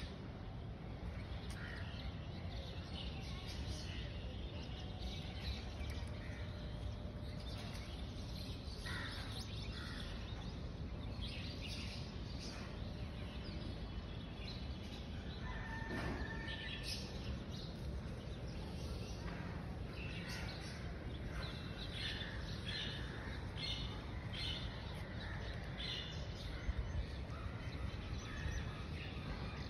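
Birds chirping and calling, in short scattered calls that come more often in the second half, over a steady low outdoor rumble.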